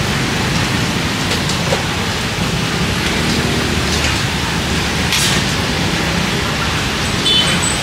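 Hot oil sizzling steadily in a deep fryer as pieces of meat fry.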